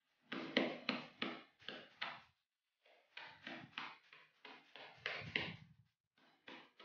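Handling noise from a plastic bottle and a plastic bag of beans on a tabletop: a quick run of clicks, taps and crinkles in two clusters, each a few seconds long, with a couple more near the end.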